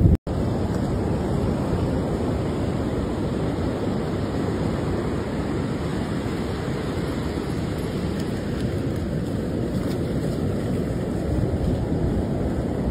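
Ocean surf breaking on a beach, with wind rumbling on the phone's microphone: a steady, even wash of noise. The audio cuts out for an instant just after the start.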